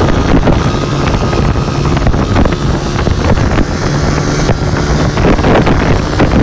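Small motorcycle engine running steadily as the bike is held up in a wheelie, with heavy wind noise on the microphone.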